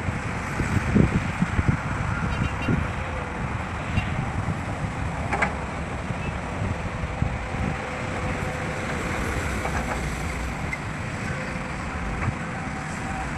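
Heavy construction machinery running steadily, with a few low knocks in the first two seconds and a sharp click about five seconds in.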